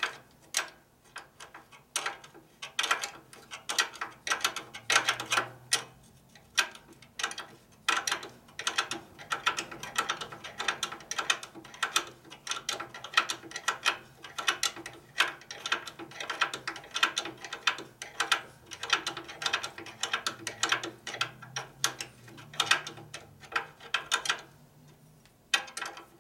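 Hand ratchet wrench clicking in rapid runs of strokes as a nut is run onto a footboard mounting bolt; the clicking stops shortly before the end.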